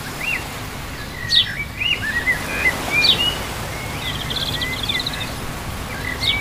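Birds chirping, a string of short rising and falling whistled calls with a quick trill about four to five seconds in, over a steady background noise.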